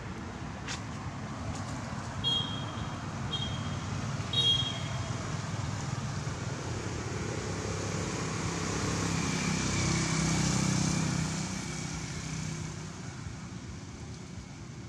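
A motor vehicle going past, its engine and tyre noise swelling to its loudest about ten seconds in and then fading. Three short high chirps come between about two and four and a half seconds in.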